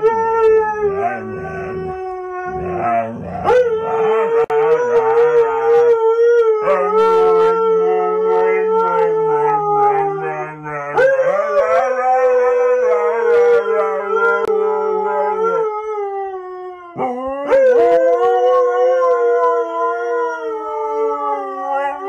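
Two huskies howling together in long, held howls, a higher and a lower voice overlapping.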